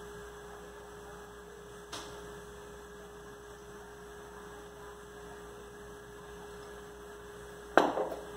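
A steady hum runs throughout. A faint click comes about two seconds in, and near the end there is a sharp knock with a brief rattle as a stainless-steel oil dispenser is set down on the stone countertop.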